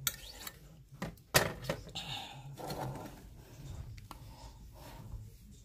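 A utensil knocking and scraping in a glass measuring cup of melted candle wax, breaking up a leftover chunk of wax. There are a few sharp knocks, the loudest about a second and a half in, with softer scraping between.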